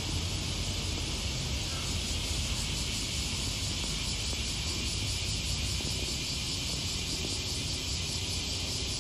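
Steady outdoor ambience: a continuous high-pitched insect chorus over a constant low rumble.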